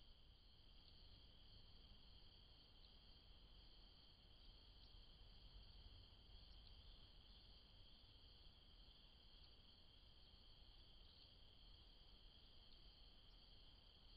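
Faint, steady chorus of crickets trilling.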